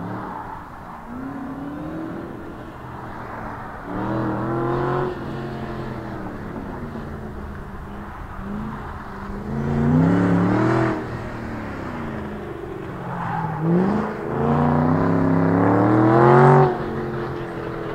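Ford Shelby GT500's supercharged V8 under hard autocross driving: repeated full-throttle pulls, each rising in pitch, then falling away as the throttle is lifted for the next turn. The last pull is the loudest and longest and ends sharply near the end.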